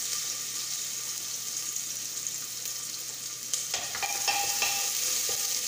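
Sliced shallots sizzling steadily as they fry in hot ghee in a pressure cooker, with a few light clicks and scrapes from about halfway through.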